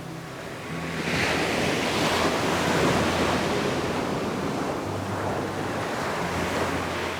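Ocean waves breaking on a beach: a wash of surf that builds about a second in, peaks, then slowly recedes, with the next wave starting to rise near the end.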